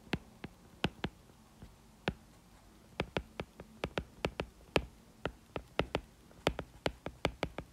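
Pen stylus tapping and clicking on a tablet while handwriting: irregular sharp clicks, sparse at first and coming thick and fast from about three seconds in.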